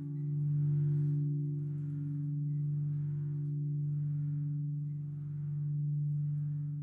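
Full peal of bronze church bells tuned cis', e', fis' and gis', heard up close in the belfry. A deep, steady hum rings on, with softer strikes recurring about once a second.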